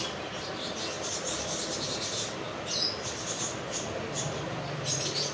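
Hands rubbing and rustling against a patient's skin and clothing as a chiropractor feels along the spine, a steady scratchy friction noise with a few brief louder rustles.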